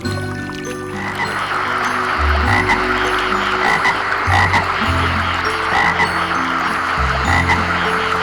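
A chorus of many frogs calling together, dense and pulsing, starting about a second in.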